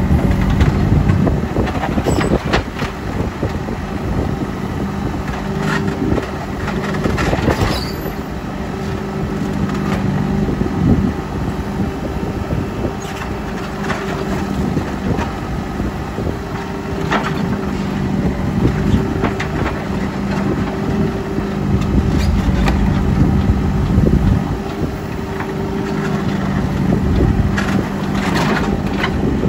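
JCB 3CX backhoe loader working, its diesel engine running steadily with its note strengthening and fading under load. Scattered knocks and clatters from the machine's working gear come through it.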